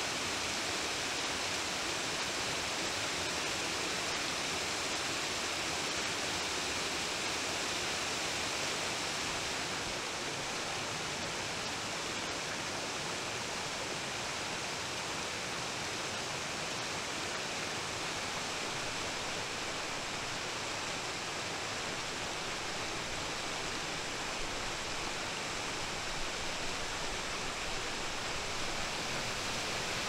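Small forest waterfall and shallow stream rushing and splashing over rocks: a steady, even roar of water that gets slightly quieter about a third of the way in.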